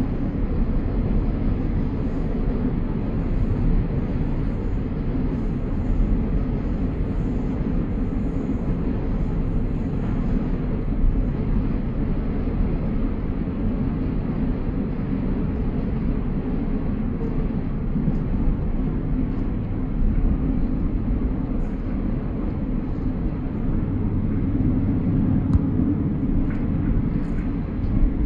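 Steady low rumble of a passenger train running along the line, heard from inside the carriage.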